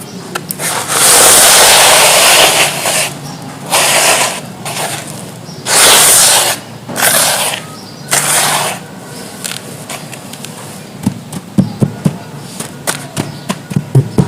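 Gritty charcoal chunks crumbling into a tub of water in five loud, noisy bursts of half a second to a second and a half, followed by a run of sharp clicks and knocks near the end.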